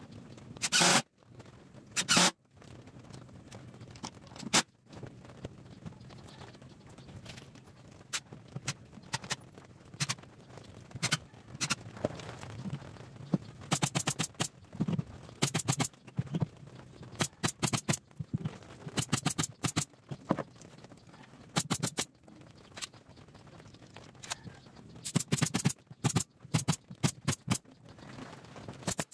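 A cordless drill driving screws into a plywood speaker cabinet, in a couple of short whirs near the start. Then come runs of hammer blows on the plywood box: quick series of sharp knocks.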